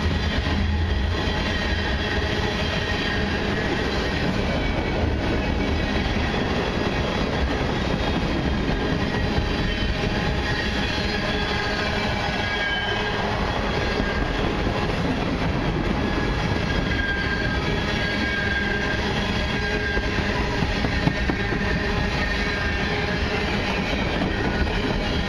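Freight train of loaded tank cars rolling steadily past close by: a continuous rumble and clatter of steel wheels on rail, with a faint high wheel squeal coming and going.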